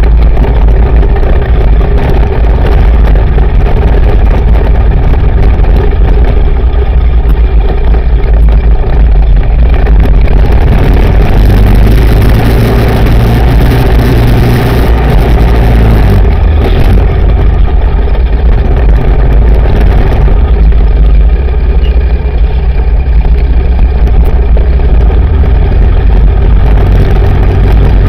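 Yamaha Raptor 700R sports quad's single-cylinder four-stroke engine running under load at varying throttle as it rides a dirt track. Wind on the handlebar-mounted camera's microphone adds a heavy, steady low rumble.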